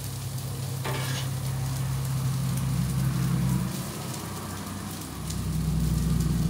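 Fried rice with chicken and vegetables sizzling on a propane flat-top griddle as it is stirred with metal spatulas, with one scrape about a second in. A low rumble underneath swells twice.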